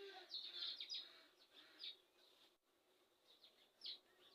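Faint chirping of small birds: a quick run of short high chirps in the first second, then single chirps about two seconds in and near the end.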